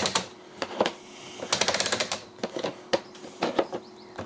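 Rapid plastic ratchet-like clicking in short bursts from the Keter Dynamic composter being worked by hand.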